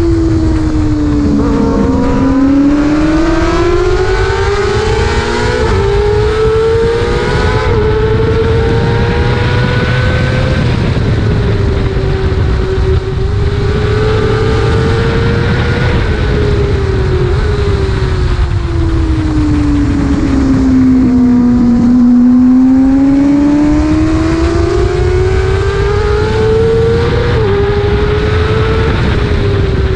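Onboard sound of a racing sportbike's engine at high revs, its pitch falling under braking near the start and again about two-thirds of the way through, and climbing through the gears in between with a short dip at each upshift. Heavy wind noise from the bike's speed lies under the engine.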